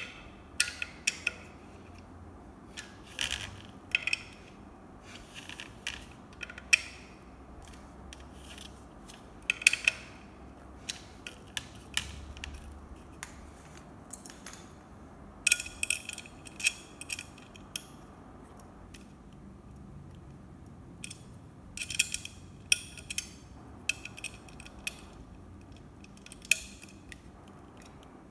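Metal parts of an IKEA Marius stool being handled during assembly: its tubular steel legs, bolts and a small flat metal spanner give irregular sharp clicks and metallic clinks against the plastic seat. The clinks bunch up into two quick runs, a little past halfway and again about three quarters through.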